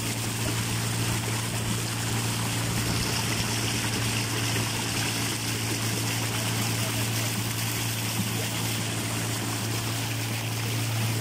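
Boat motor running steadily at an even pitch while under way, with water rushing and splashing along the hull.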